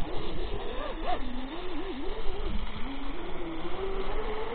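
Twin electric motors of a Minicat 820 EP RC catamaran whining, the pitch rising and falling as the throttle changes and climbing near the end.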